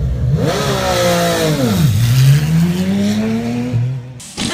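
Porsche GT race car's engine pulling away from a pit stop: the pitch rises, drops sharply about two seconds in, then climbs steadily as the car leaves, fading near the end.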